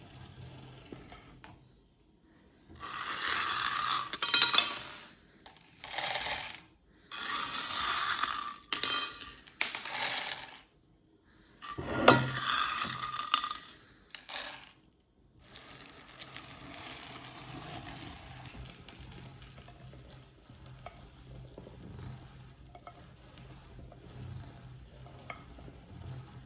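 Hard little pieces of pebble-shaped chocolate clatter and crunch in a metal meat grinder in several loud bursts separated by brief silences. After that, a low steady hum carries on with faint scattered clicks.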